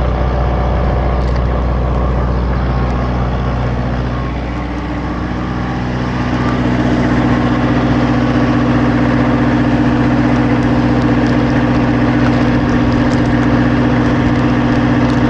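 Steady hum of food-trailer generators running, a low drone with several steady tones. About five seconds in, a second, louder hum comes in.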